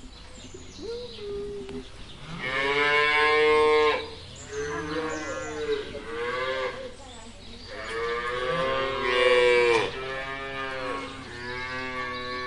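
Cattle mooing: a short call about a second in, then four long, drawn-out moos one after another, each lasting about two seconds.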